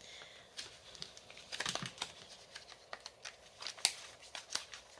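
Plastic packaging pouch crinkling and crackling in the hands as it is picked up and its sealed top is picked at to open it, a quick irregular run of small crackles.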